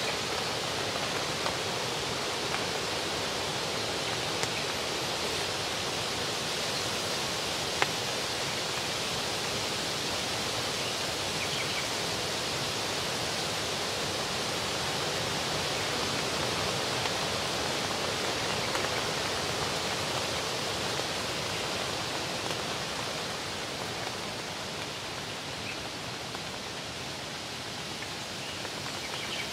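Steady outdoor hiss of a breeze through the lakeside leaves and over the water, with a few faint ticks.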